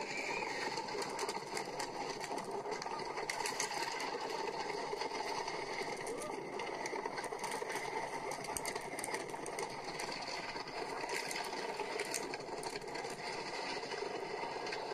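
Megafobia wooden roller coaster's train running along its track: a steady rumble of the wheels with a dense, fast rattling clatter.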